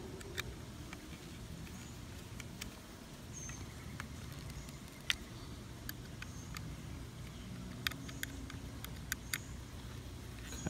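Small screwdriver tightening the screws of an aluminium Raspberry Pi case: scattered light clicks and ticks as the tip turns in the screw heads, over a steady low background rumble.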